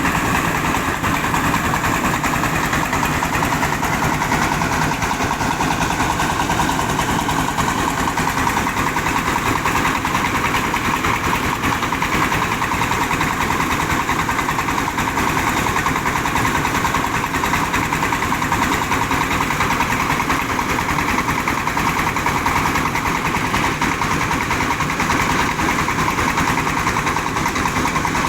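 Diesel engine and milling machinery of a mobile rice huller running steadily at an even speed.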